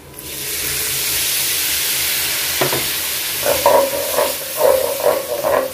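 Water hitting hot butter and chilli powder in a pan, setting off a sudden loud sizzling hiss. From about three and a half seconds in, the thickening mixture bubbles with a run of short, low, blurping pops.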